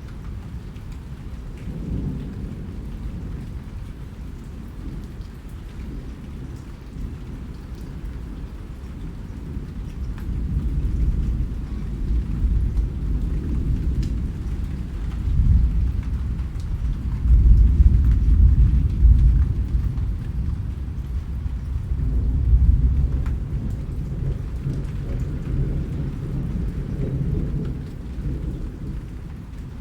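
Rain falling, with scattered drop ticks, over a low rolling rumble of thunder that builds about a third of the way in, is loudest just past the middle and eases toward the end.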